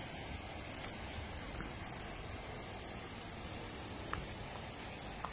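Steady outdoor background hiss with a couple of faint clicks, one about four seconds in and one near the end.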